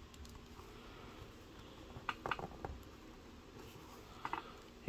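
Gray plastic action figure being handled and posed on a tabletop: a few faint clicks and taps from its joints and feet, a couple about two seconds in and a few more near the end.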